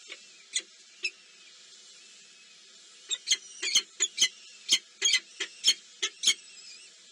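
Nestlings giving short, high squeaky begging chirps: a couple near the start, then a quick run of about a dozen in the second half.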